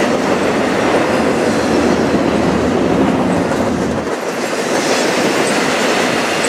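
Double-stack intermodal container train rolling past, a steady noise of steel wheels on rail from the passing well cars. The low rumble eases off about four seconds in.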